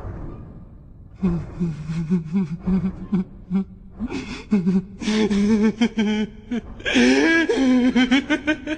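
A man's voice gasping and whimpering in short broken bursts, then growing louder and more strained about seven seconds in.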